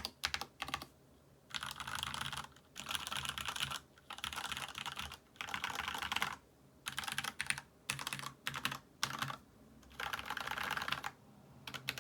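Typing on a Monstargear Ninja87BT mechanical keyboard with lubed retooled Cherry MX Black linear switches, PBT Cherry-profile keycaps, an aluminium plate and a foam-filled plastic case. The typing comes in fast runs of keystrokes about a second long, separated by short pauses, with a few single key presses near the start.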